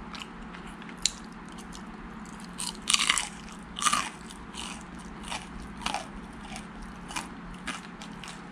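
Chewing crisp deep-fried hairtail: the batter crunches between the teeth in irregular bites, loudest about three and four seconds in.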